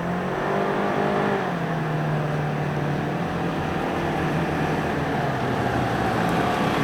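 Polaris Ranger XP 1000 side-by-side's engine running under way in high range, its pitch dropping about a second and a half in, then holding steady.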